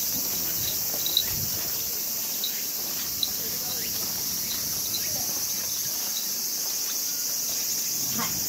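A steady, high-pitched drone of an insect chorus from the surrounding trees, with faint short chirps and a couple of soft taps.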